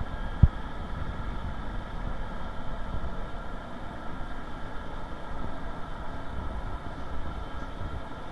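Steady hum and low rumble of a spray booth's ventilation fans, with a single sharp knock about half a second in.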